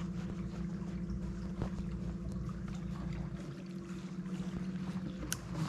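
Small boat's motor running with a steady hum, with a few sharp clicks near the end.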